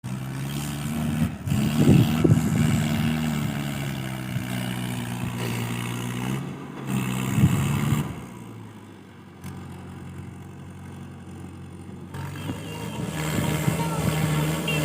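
Tractor engine running steadily while on the move, with louder surges about two seconds in and again about seven seconds in. It drops quieter for a few seconds, then builds back up near the end.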